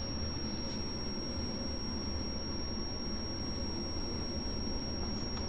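Steady room noise: a low hum and hiss with a faint, constant high-pitched electronic whine, and no distinct events.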